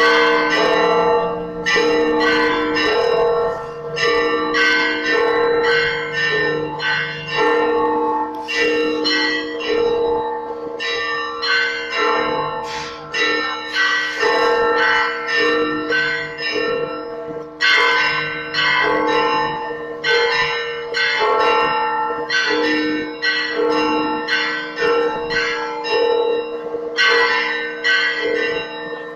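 Church bells rung in quick, rhythmic peals for the evening service. Several bells of different pitches are struck in a repeating pattern over the hum of larger, lower bells, with a short break about two-thirds of the way through.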